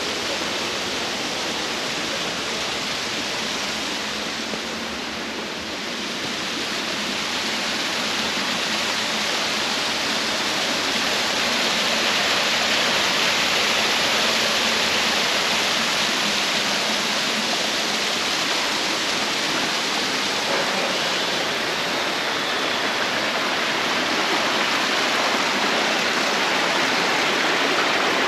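Waterfall water rushing steadily, growing a little louder after about ten seconds.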